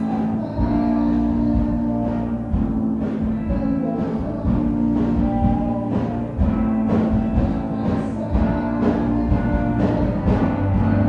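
Instrumental background music with held notes that change pitch over a steady drum beat.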